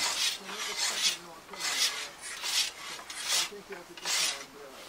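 Steel scythe blade making a regular run of short rasping strokes, a little more than one a second.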